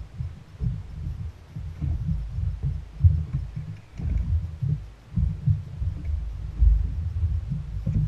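Muffled, uneven low rumbling and thumping from wind buffeting the microphone and the small boat riding the swell. Nothing higher-pitched stands out above it.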